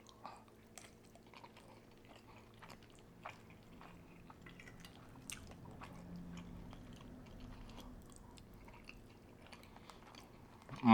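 Close-up chewing, with many soft wet mouth clicks and smacks of food being eaten. A louder burst comes right at the end.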